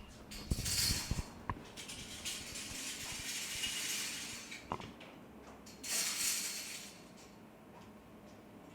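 Lottery draw machine running between number calls: a quick run of clicks and rattles, then hissing that fades and comes back once.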